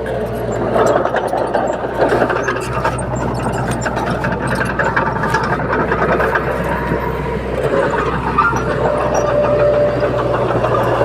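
Komatsu D21P bulldozer running steadily under work, its diesel engine humming with frequent short metallic clicks and clanks from the tracks and blade.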